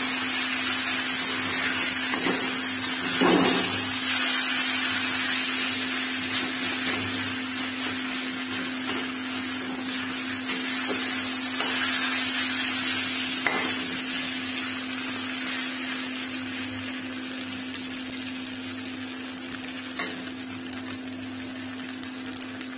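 Rice frying in a steel kadhai, sizzling steadily as it is stirred, with a few scrapes of a perforated steel spatula against the pan. A steady low hum runs underneath, and the sizzle eases a little toward the end.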